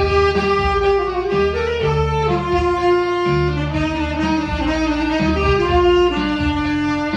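Tenor saxophone playing a slow melody of long held notes over a backing track with a pulsing bass line and guitar.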